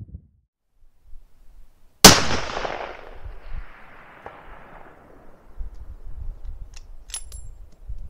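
A single 300 PRC rifle shot about two seconds in, its report rolling away in a long echo that fades over about three seconds. A few sharp clicks follow near the end.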